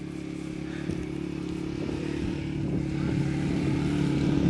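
An engine running steadily at an even pitch, getting gradually louder.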